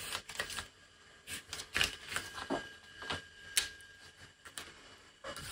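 Felt-tip marker drawing lines along the edge of a paper pattern, in short scratching strokes mixed with the rustle of pattern paper being shifted under the hands.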